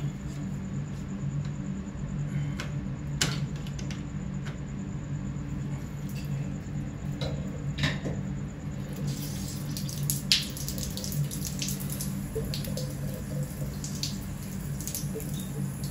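Water spraying and splashing out around a shower faucet valve stem as the valve is loosened, getting hissier about nine seconds in. A few sharp clicks come from the plastic valve being handled.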